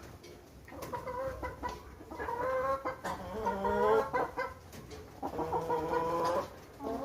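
Domestic chickens clucking, with two drawn-out, wavering calls.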